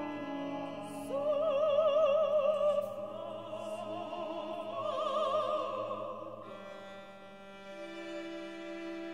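Operatic-style singers with wide vibrato come in about a second in over held string chords, a higher voice swelling near the middle; after about six seconds the voices drop out, leaving a softer sustained chord.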